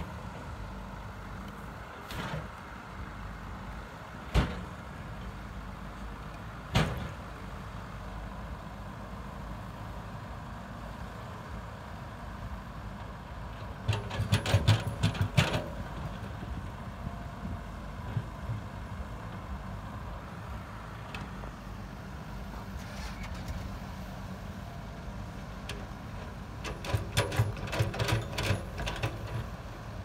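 Diesel engines of a dump truck and an excavator running steadily. Three single sharp metal clunks come in the first seven seconds. Two bursts of rapid clanking and rattling follow, one around the middle and one near the end, as the steel dump bed and bucket work.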